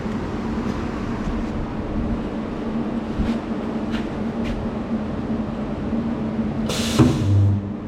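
Resistance spot welder making a test weld at 8 kA, 15 cycles and 3 kN electrode force: a steady machine hum, then near the end a short burst of hiss as the electrodes close, followed by a brief low buzz while the weld current flows.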